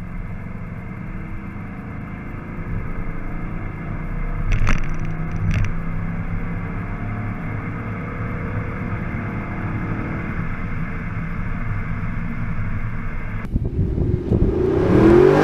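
Audi R8's 4.2-litre naturally aspirated V8 heard from inside the cabin while driving, with two sharp clicks about a second apart roughly five seconds in. Near the end the sound cuts to the roadside as the car drives past, its engine note rising then falling in pitch, the loudest moment.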